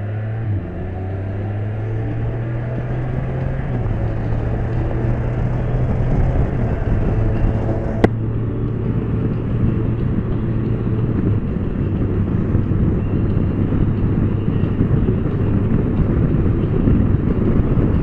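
Can-Am Spyder engine holding a steady speed under way, with wind and road noise building. A single sharp click comes about eight seconds in.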